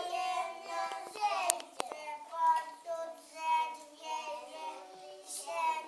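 Young children singing together in held, sing-song notes. Two sharp clicks come about a second and a half in.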